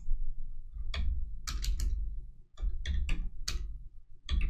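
Computer keyboard keystrokes: about a dozen sharp clicks in irregular small groups, typing a number into a field.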